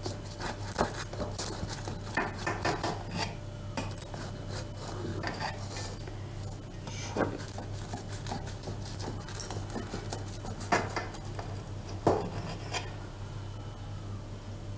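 Kitchen knife cutting through a soft baked bread ring in a metal baking pan, with irregular scraping strokes and the blade now and then clicking and knocking against the pan, over a steady low hum.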